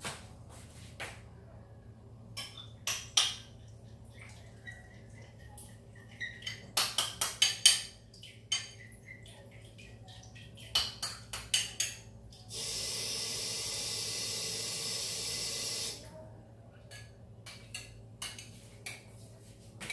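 Kitchen clatter of dishes and a spoon clinking in scattered bursts, with water running from a tap for about three seconds a little past the middle.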